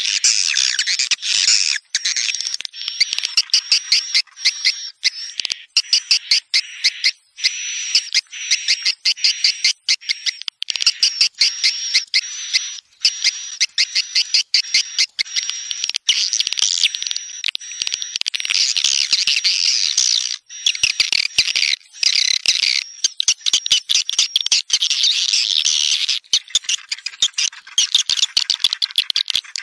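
Swiftlet lure call track for drawing birds into a swiftlet house at dusk ('tarik senja'): dense, rapid, high-pitched swiftlet twittering and chirping in close bursts with short breaks. A thin steady whistle-like tone runs under the chirps through the first half.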